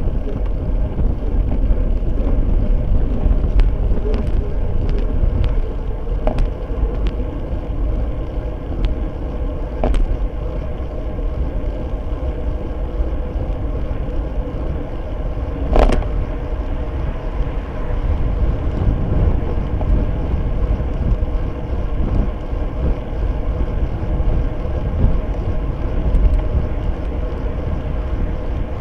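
Wind buffeting and road rumble picked up by a bicycle-mounted camera on a road bike in motion, with a scattering of sharp clicks and one louder knock about sixteen seconds in.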